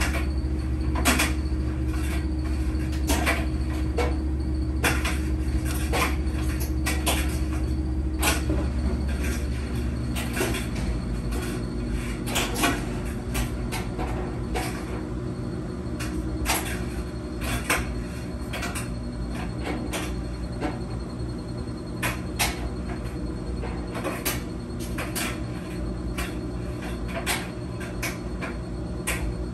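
Laundry machine running: a steady motor hum with irregular clicks and knocks from inside the drum. The hum changes about eight to ten seconds in.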